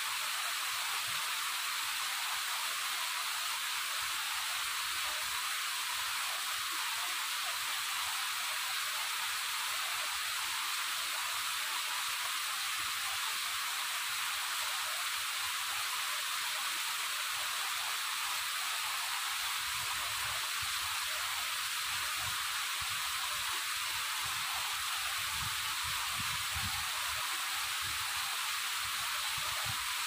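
Waterfall rushing: a steady, even hiss of falling water, mostly high in pitch with little low rumble.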